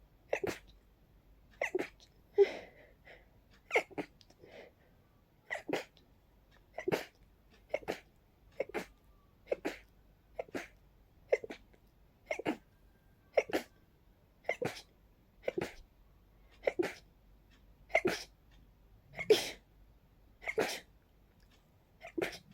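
A person sneezing over and over in a rapid fit: about twenty sharp sneezes, roughly one a second, a couple of them louder than the rest. The sneezer puts the fit down to pollen.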